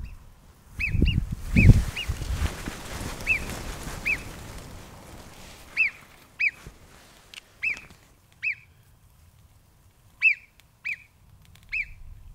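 Alpine marmot giving short, sharp alarm whistles, about a dozen of them, each a quick rise and fall in pitch, spaced irregularly half a second to a second and a half apart. A low rumbling noise runs under the first couple of seconds.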